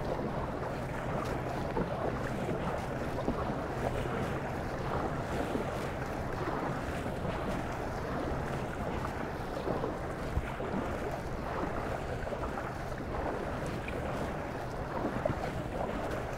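Paddle strokes and water splashing and sloshing around a Bonafide RS117 (Rise 117) fishing kayak as it is paddled along. Wind is buffeting the microphone, with a low steady hum underneath and a few small knocks.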